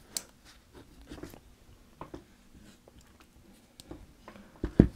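Small 1911 pistol parts being handled on a carpeted surface: a few light scattered clicks as the mainspring housing and frame are picked up and set down, with a louder soft thump near the end.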